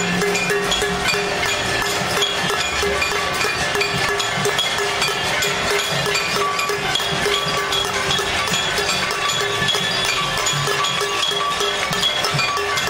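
Many people beating pots and pans in a casserole protest: a steady, dense metallic clatter of strikes, with the ringing tones of the struck pots.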